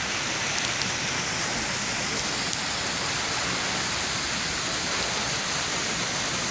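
Steady, even rushing noise with no distinct events: outdoor ambience.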